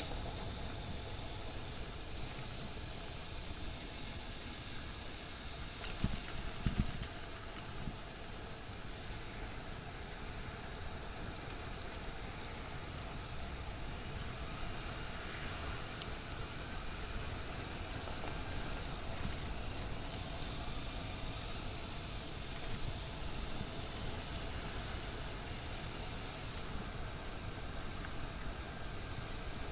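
Motorcycle being ridden: a steady rush of wind on the microphone with the engine running underneath, and a couple of thumps about six to seven seconds in.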